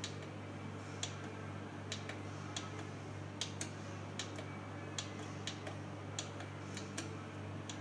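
Sharp, irregular clicks, about one to two a second, of the control-panel buttons on a Chauvet COLORado Batten 144 LED light bar being pressed to step through its colour channels, over a steady low hum.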